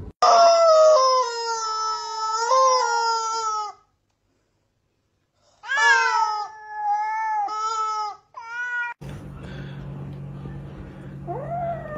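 A long, high squeal lasting about three and a half seconds. After a short silence comes a rubber chicken squeaky toy, squeezed at a cat, giving four squawks that drop in pitch. Near the end a kitten lets out a falling cry over a low hum.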